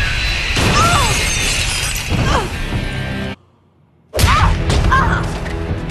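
Cartoon fight-scene sound effects of shattering and crashing over background music. They drop out suddenly to near silence about three and a half seconds in, then return with a loud crash a moment later.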